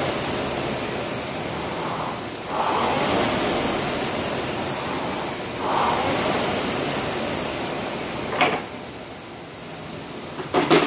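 Concept2 rowing machine's air-resistance flywheel whooshing as it is rowed, swelling with each drive stroke about every three seconds. A few sharp knocks come near the end.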